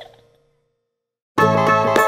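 Background music: a children's tune dies away at the start, followed by about a second of dead silence, then a different tune starts abruptly about one and a half seconds in.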